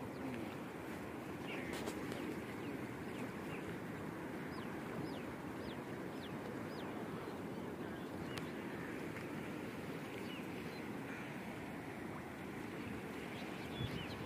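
Steady rushing of the fast-flowing, flood-swollen Indus river's muddy current along its bank, with a bird chirping several times about five to seven seconds in.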